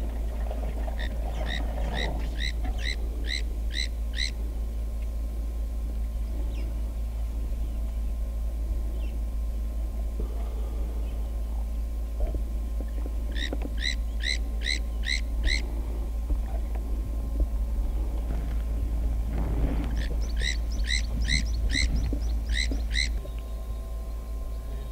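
A bird calling in three runs of short, repeated notes, about three a second, over a steady low rumble that drops off near the end.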